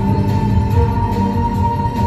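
Music: a long held high note over a pulsing bass.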